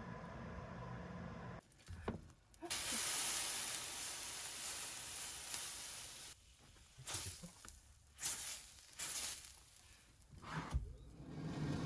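Food sizzling in hot oil, a steady hiss broken off by several abrupt cuts.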